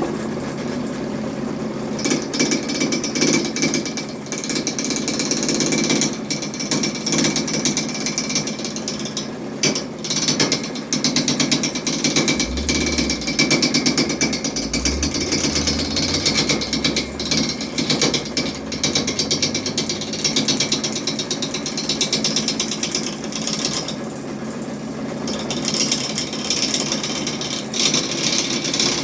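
Harbor Freight lathe running with a tool cutting a spinning workpiece, a continuous rapid rattling chatter that eases briefly about 24 seconds in.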